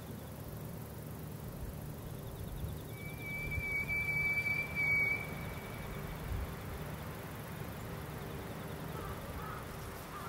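A single steady high pure tone, held for about two seconds a few seconds in, over a faint low steady rumble.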